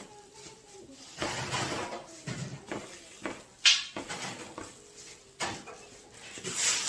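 Intermittent rustling and handling noises of work in a shop kitchen, with a few sharp clacks; the loudest clack comes about halfway through.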